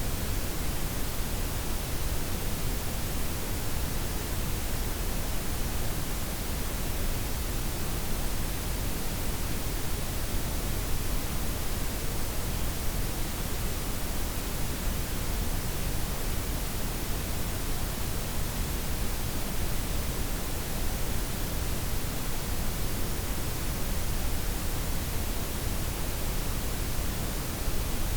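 Steady blended noise: white noise with its highs softened, layered with pink and brown noise, an even hiss with a deep low rumble and no changes.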